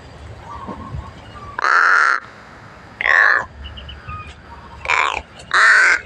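Pet crows cawing: four loud caws, the first about a second and a half in and the last two close together near the end.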